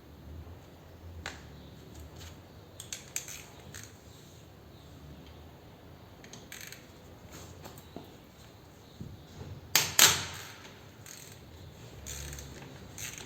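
Hand tools and metal motorcycle parts clicking and knocking during work on a rear brake caliper, with one loud metallic clank about ten seconds in.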